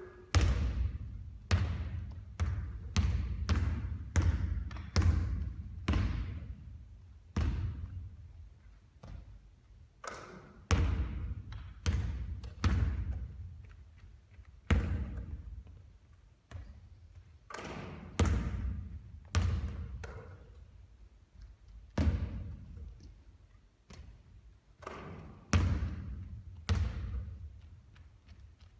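Basketball bouncing hard on a court floor, a string of irregularly spaced thuds, each echoing briefly.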